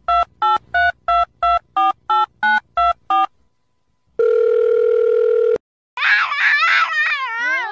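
Phone keypad tones, about eleven quick two-tone beeps in a row, then a steady telephone tone about a second and a half long. About six seconds in, a small white Pomeranian-type dog starts howling, its pitch wavering up and down.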